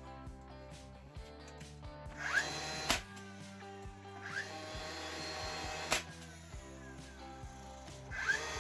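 Cordless brad nailer: its motor whirs up with a rising whine, then fires a brad with a sharp snap, twice about three seconds apart, and starts whirring up a third time near the end. Background music plays throughout.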